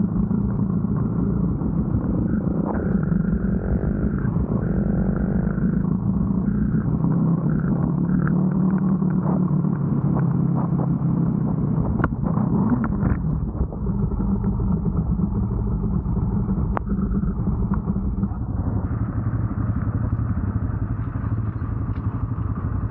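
Motorcycle engine running under load, its pitch rising and falling several times as the throttle is worked, with a few sharp knocks about halfway through.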